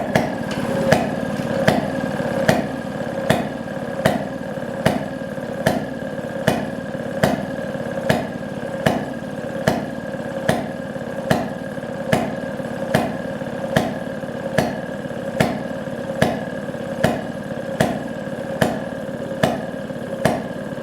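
1929 Maytag Model 92 single-cylinder two-stroke washing-machine engine running steadily after a rebuild, with a sharp click repeating a little more than once a second.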